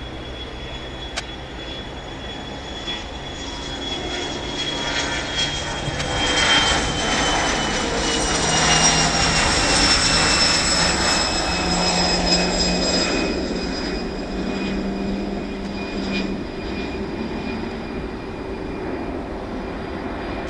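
Bombardier CRJ-200ER's two rear-mounted General Electric CF34 turbofans at takeoff power: a roar with a high whine that slowly falls in pitch. It grows louder as the jet rolls past and lifts off, then fades as it climbs away.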